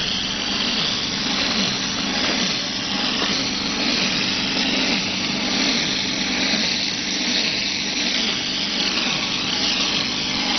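OHT38 hose-pump plastering machine spraying wet mortar from its air-fed nozzle onto a wall: a steady hiss of compressed air and spattering mortar, with a steady low hum beneath.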